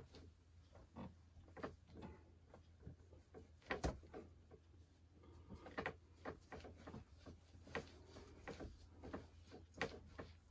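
Faint, irregular scratches, rubs and light taps of a hand working over freshly painted N-scale model railroad track, cleaning paint from the rails, with one sharper tap about four seconds in. A low steady hum runs underneath.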